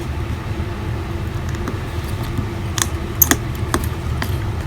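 A few light, sharp clicks and taps in the second half from handling the iPhone and small repair tools, over a steady low hum.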